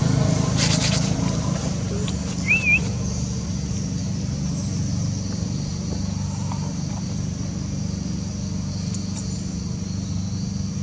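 A motor engine running steadily and slowly getting quieter, under a steady high hiss. A short wavering chirp comes about two and a half seconds in.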